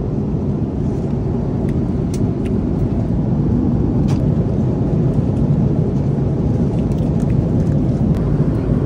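Steady low drone of a jet airliner's cabin in flight, with a few faint short clicks over it.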